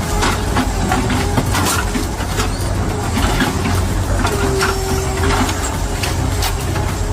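A heavy machine running steadily with a constant low rumble, under scattered sharp knocks and clatter.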